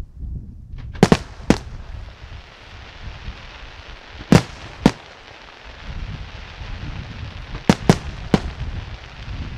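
Daytime aerial firework shells bursting in the sky, with sharp bangs in three clusters: three about a second in, two near the middle and three near the end, over a steady low rumble.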